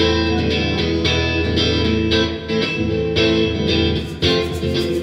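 Electric guitar strumming chords in a steady rhythm, an instrumental passage with no singing.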